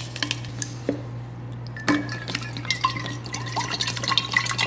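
A few light clicks as a powder packet is emptied into a stainless steel water bottle. Then, about two seconds in, water pours from a pitcher into the bottle, splashing and gurgling with short rising tones as it fills.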